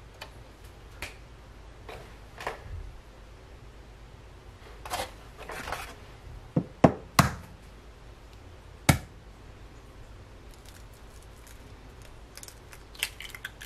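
Raw eggs being cracked: sharp knocks of the shell tapped against a countertop, three in quick succession about halfway through and one more a couple of seconds later, with light clicks of handling between. Near the end, small crackles as the shell is pulled apart by hand over the pan.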